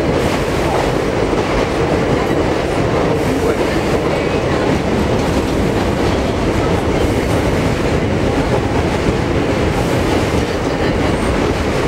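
Steady running noise of an R42 subway car heard from inside the car as it travels along the track: an even rumble of wheels, running gear and car body.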